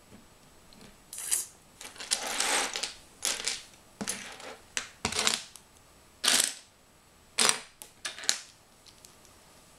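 Loose plastic Lego bricks clattering and rattling against each other as a hand rummages through a pile of them, in a series of short bursts starting about a second in.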